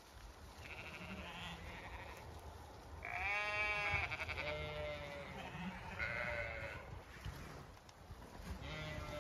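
Zwartbles sheep bleating in the field, about five calls in a row, the loudest about three seconds in.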